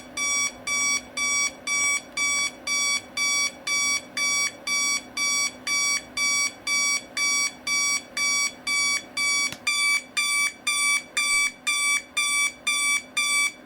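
Equity 30016 digital alarm clock's alarm beeping: short electronic beeps of one pitch, about two a second, evenly spaced, getting a little louder about two-thirds of the way through.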